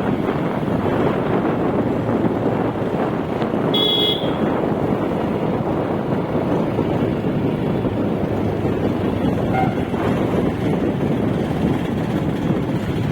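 Steady noise of a moving road vehicle, with a short horn toot about four seconds in.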